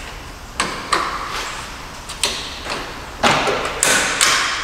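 About six sharp knocks and clanks at uneven intervals, each ringing briefly, with the loudest cluster near the end.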